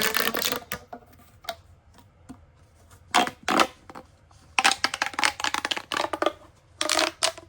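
Plastic pop tubes being stretched and squeezed by hand, making several bursts of rapid ribbed clicking with short pauses between.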